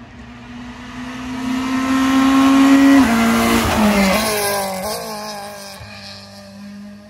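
Small hatchback rally car at full throttle passing close by. Its engine note climbs as it approaches, drops sharply as it goes by, and climbs again as it pulls away and fades.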